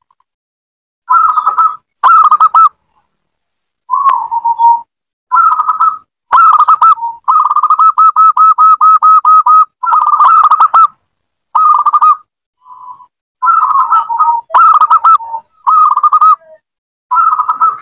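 Local zebra dove (perkutut) cooing: a string of short, quick trilled coo phrases at much the same pitch, separated by brief silences, with one longer run of rapid repeated coos near the middle.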